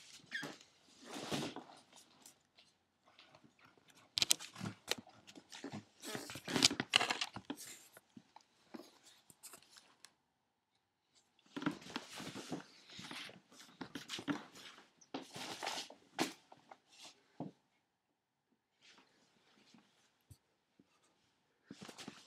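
A cat scrabbling and moving about on cardboard and a wooden floor: three bouts of scratching and rustling, a few seconds each, with quieter gaps, fading to faint ticks after about 18 seconds in.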